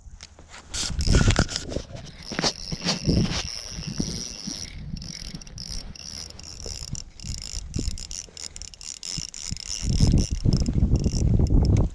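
Small spinning reel being cranked to reel a perch up through the ice hole, a fine ticking whir from the reel's gears. A jacket sleeve rubs and rustles against the microphone about a second in and more heavily near the end.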